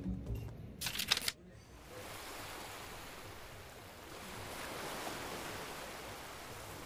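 Ocean surf breaking on rocks below a cliff: a steady washing hiss that swells and eases. A brief sharp burst of noise comes about a second in.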